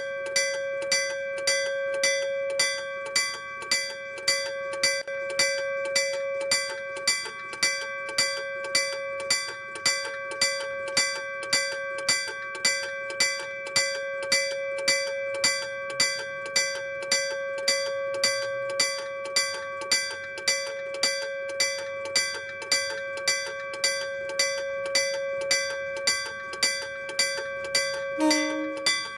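Iron electric-bell level crossing signal of the old Meitetsu type, its hammer striking the bell in a steady, even rhythm of about one and a half strikes a second, each strike ringing on into the next with a metallic tone.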